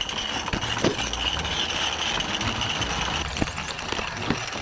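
Live steam 32 mm gauge model tram locomotive hissing steam steadily, with a few sharp knocks as it is handled; the hiss fades about three seconds in.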